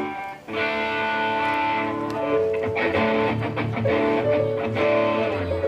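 Amplified guitar playing sustained chords during a sound check, with a short break about half a second in before the chords ring on.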